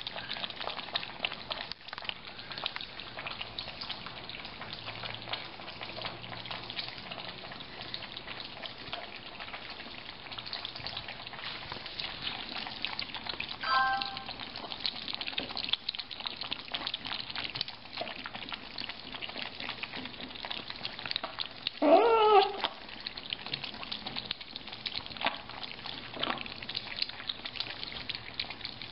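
Several kittens lapping milk from a dish, a fast, steady wet clicking. A short kitten meow comes about halfway through, and a louder, drawn-out meow that rises and falls comes about three-quarters of the way in.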